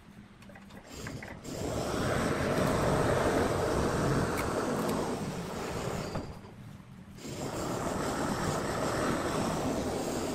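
A loud, steady rushing noise with no clear pitch. It starts about a second and a half in, drops away briefly around six seconds in, comes back, and cuts off suddenly at the end.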